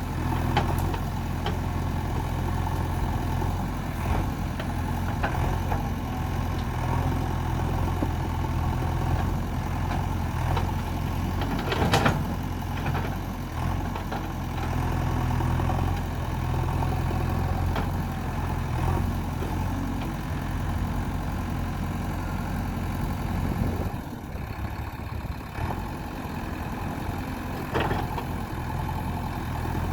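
JCB 3DX backhoe loader's diesel engine running steadily, with a few sharp knocks over it, the loudest about twelve seconds in and another near the end.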